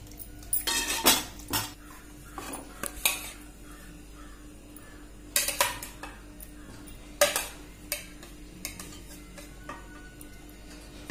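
Steel ladle stirring thick curry in an aluminium pressure cooker, with a scattering of sharp metal clinks and knocks against the pot, loudest about a second in and again around seven seconds.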